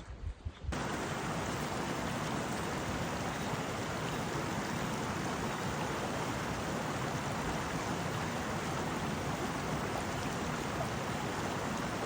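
A river's flowing water rushing steadily. It cuts in abruptly just under a second in, after a few low thumps.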